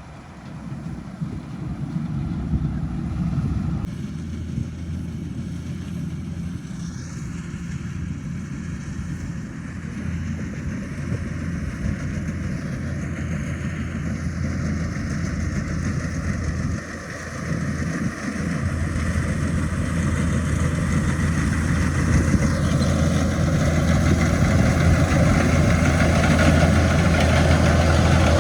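Rice harvesting machine's engine running steadily, growing louder toward the end.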